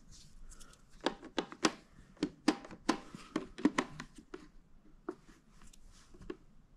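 Hands working the plastic body of a robot vacuum: a string of irregular, sharp clicks and taps as the pull tab is taken out and the power button on top is pressed.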